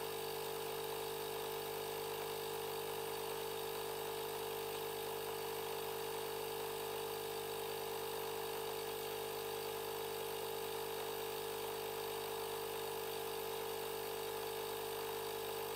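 Einhell Pressito hybrid compressor running steadily, blowing air through its wide inflation hose into a large latex balloon: an even, unchanging hum.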